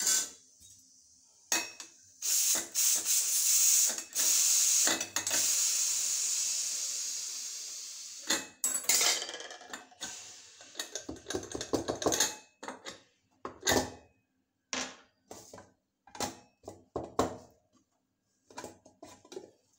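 Steel cooking pots and utensils clinking, knocking and scraping, with a loud hiss starting a couple of seconds in and fading away over about five seconds.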